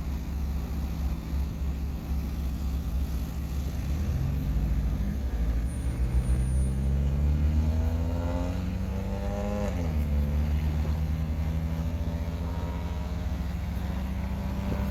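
A motor vehicle's engine hums steadily underneath. Over it, an engine rises in pitch as it speeds up for about six seconds, drops sharply about ten seconds in, then runs on at a steady, lower pitch.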